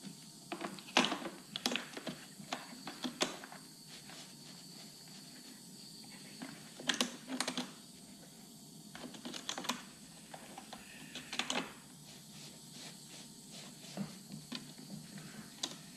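Hard plastic clicking and tapping as a Neato Botvac D7's roller brush and its orange end cap are handled and seated in the brush housing: irregular light clicks, some in quick clusters.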